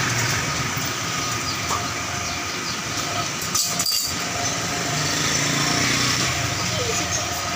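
A steady mechanical drone, with a couple of sharp knocks about three and a half seconds in.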